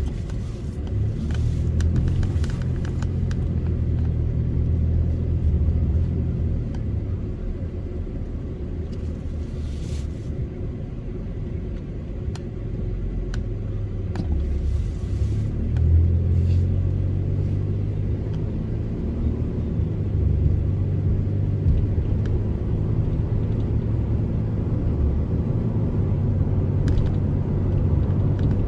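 Truck engine and road rumble heard from inside the cab while driving, a continuous low drone that rises and falls a little in pitch.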